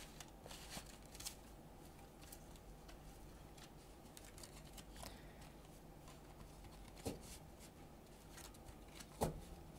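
Near silence: faint room tone broken by a few short, soft taps, one about seven seconds in and a louder one near the end.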